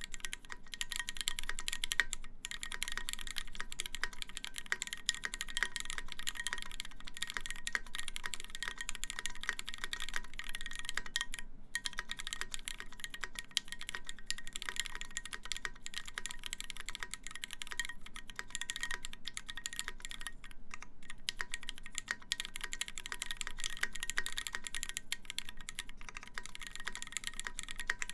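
Continuous fast typing on a custom mechanical keyboard with lubed Cherry MX Black linear switches, a stainless steel plate and GMK keycaps: a dense, steady stream of key clacks, with two brief pauses, about two seconds in and near the middle.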